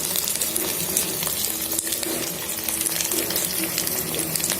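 Chopped onions sizzling and crackling steadily in hot mustard oil in an electric kettle, frying.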